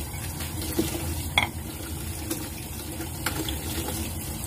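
Kitchen tap running into a stainless steel sink, splashing over mussels and a bowl as they are rinsed by hand, with a few light clinks, the sharpest about a second and a half in.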